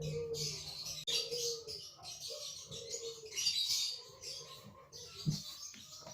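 A dove cooing over and over in soft, arching phrases, with small birds chirping high above it; a light knock near the end.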